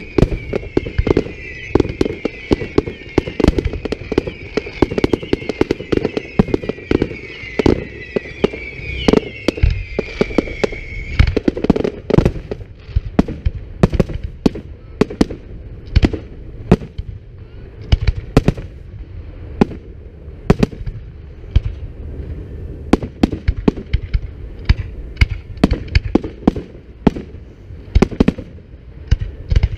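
Fireworks display: a rapid barrage of aerial shell bursts, many sharp bangs every second. Over the first eleven seconds several overlapping whistles fall slowly in pitch, then cut off suddenly.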